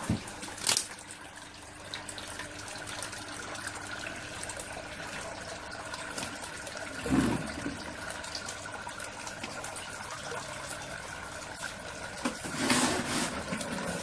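Water trickling and splashing as a flowerhorn fish is released back into its aquarium, with louder splashes about a second in, midway and near the end.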